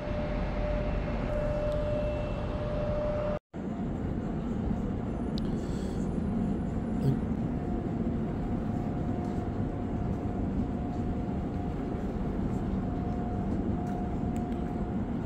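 Steady rumbling hum of a large, empty airport terminal hall, with a faint steady tone above it. The sound drops out for a moment about three and a half seconds in, then goes on unchanged.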